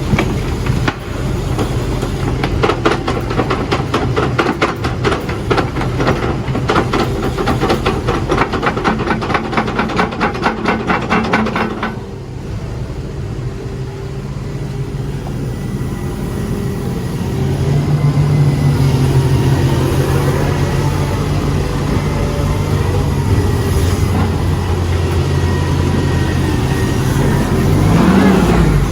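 Volvo excavator at work: fast, even clattering for the first twelve seconds or so, which then stops, leaving the diesel engine running steadily. The engine grows louder a little past halfway.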